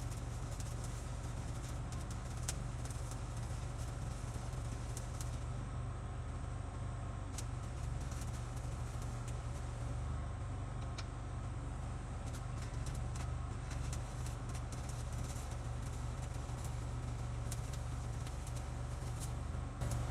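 An engine running steadily at idle, a low even hum, with scattered sharp clicks and crackles over it.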